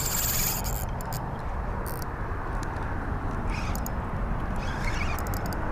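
Steady wind rushing over the microphone, with a few faint clicks from a spinning reel being cranked as a small fish is reeled in.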